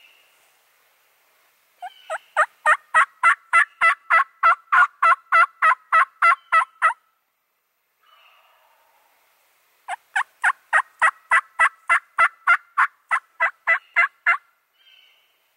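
Turkey yelping: two long runs of evenly spaced, sharp yelps, about four to five a second, each run lasting about five seconds with a pause between.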